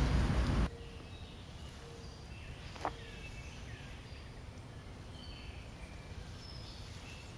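A loud rushing noise cuts off abruptly under a second in, giving way to quiet woodland background with scattered short high bird chirps. A single sharp click comes about three seconds in.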